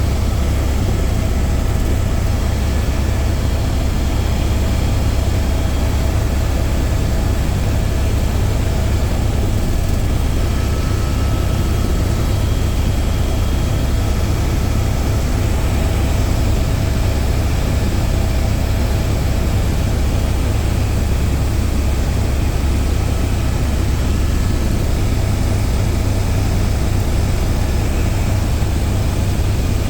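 Helicopter in flight: steady engine and rotor noise with a heavy low rumble, unchanging throughout.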